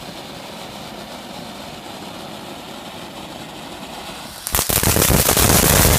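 Steady rushing noise, then about four and a half seconds in a lit firework breaks into loud, dense crackling that keeps going.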